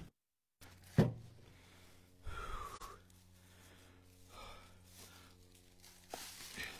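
A split firewood log set into a pickup truck's loaded bed knocks down onto the wood once, sharply, about a second in. A few quieter, shorter rustles and breaths follow as the loader steps back to the woodpile.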